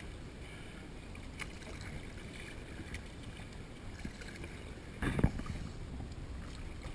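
Water washing around an inflatable raft as it is paddled, a steady low wash, with a louder bump about five seconds in.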